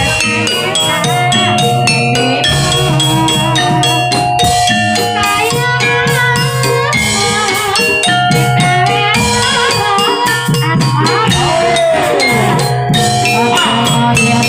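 Gamelan-style music accompanying a kuda kepang hobby-horse dance: tuned metal percussion ringing steady melodic notes over continuous drumming.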